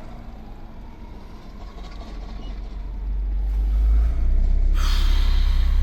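A car driving, with a low road rumble that grows louder about three seconds in, and a hissing noise joining it near the end.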